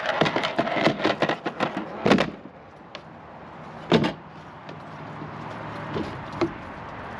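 Plastic clicking and knocking as a kayak's hatch and its storage tray are handled, then the plastic hatch lid shuts with a sharp knock about four seconds in, followed by a couple of small clicks from its latch.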